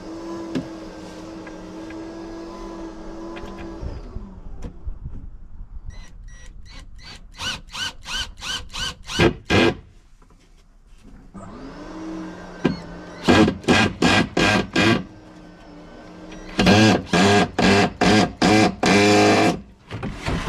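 A handheld power tool: its electric motor runs steadily and winds down about four seconds in. It then runs in rapid short trigger pulses, about three or four a second, spins up again midway and gives two more runs of pulses.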